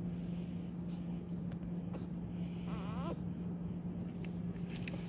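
A puppy gives one short, quavering whine about three seconds in, over a steady low hum.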